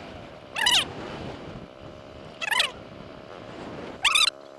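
An animal's short, wavering pitched calls, three of them about a second and a half to two seconds apart, over a steady low background rumble.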